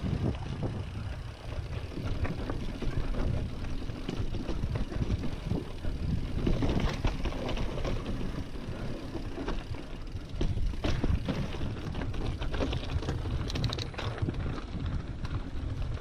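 Specialized Stumpjumper mountain bike rattling down a rocky dirt trail, with constant short clicks and knocks as the tyres and frame go over loose stones. Wind buffets the action-camera microphone as a steady low rumble.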